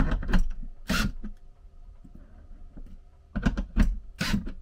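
Cordless drill/driver driving lag screws through a metal TV-mount bracket into wood, in short bursts: two in the first second and three more near the end.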